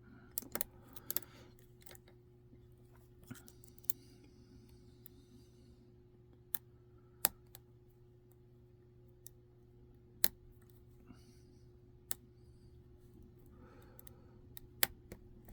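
Lock picks working in a Master Lock No. 3 padlock: about a dozen small, sharp metallic clicks at irregular intervals as the pick and tension wrench move against the pins and plug.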